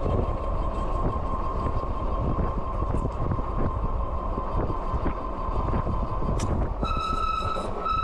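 MeeBike Gallop fat-tire e-bike riding at about 23 mph on throttle, with a steady rumble of wind and tires and a thin steady whine. About seven seconds in, a loud, steady, high squeal sets in from its hydraulic disc brakes as the bike slows; the rider puts the squeal down to oil on the brakes.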